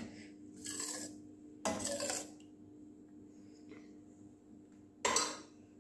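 Steel ladle scraping and clinking against a stainless steel kadai while stirring thin dal: a sharp knock at the start, then a few short scrapes spaced out over the next few seconds.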